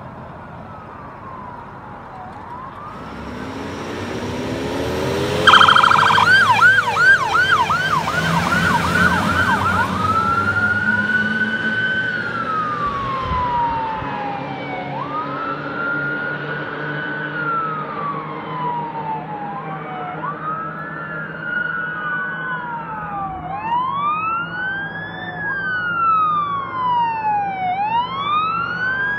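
Fire engine pulling away, its engine revving up, then its siren starting suddenly about five seconds in with a fast yelp before settling into a slow rising-and-falling wail. In the second half a second fire engine's siren wails alongside, out of step with the first.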